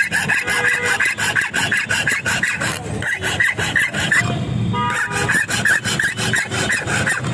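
Metal key blank being shaped, with rapid, repeated rasping strokes of metal scraping on metal. There is a short break a little over four seconds in.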